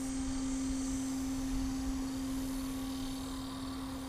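A steady hum at one constant low pitch, unchanging throughout, over faint outdoor background noise.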